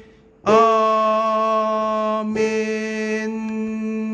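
Soprano voice singing a long held closing note of the hymn over a steady sustained accompaniment tone; after a short break the voice comes in about half a second in, with a brief change of syllable about two seconds in, and holds to the end.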